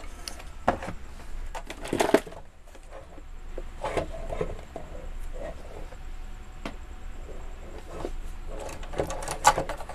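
Handling noises: a few scattered clicks and knocks as a speaker circuit board, a digital multimeter and its test leads are moved about, with a cluster of clicks near the end, over a steady low background hum.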